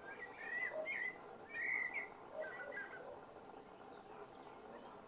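Eurasian blackbird singing a slow, unhurried phrase: fluting warbled notes mixed with higher twittering notes, all in the first three seconds.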